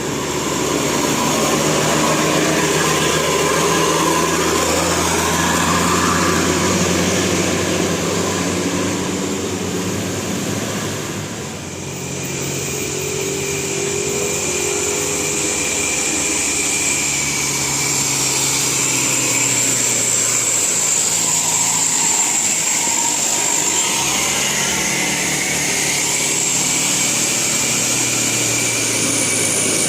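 Motor vehicle engines running, loud and steady, with a brief dip and a change in the sound about twelve seconds in.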